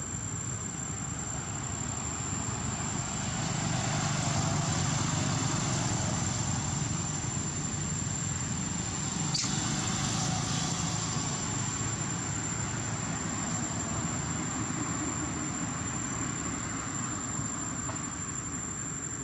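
Outdoor background noise: a steady low rumble that swells about four seconds in and then eases, under a constant high-pitched whine.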